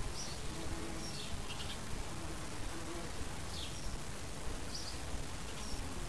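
A bee buzzing in a low hum that comes and goes, with short, high, falling bird chirps every second or so over a steady background rush.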